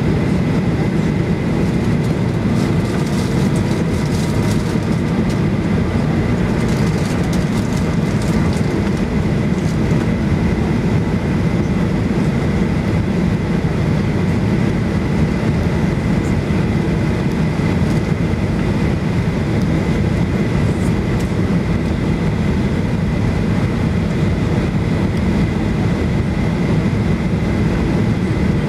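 Steady cabin roar of a Boeing 737-8200 on approach with flaps extended: engine and airflow noise heard from a window seat, deep and even, with a thin steady whine above it.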